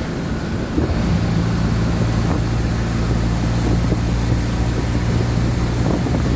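Mercedes-Benz OF-1722M city bus diesel engine running under way, a steady low engine note. The note eases briefly at the start and picks up again just under a second in.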